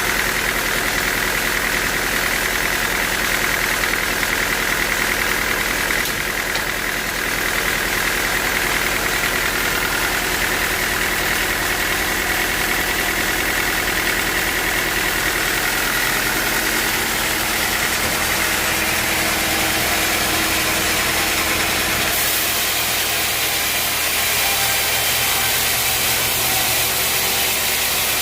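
A sawmill's engine running steadily. About three-quarters of the way through, the low hum drops away and a hiss grows.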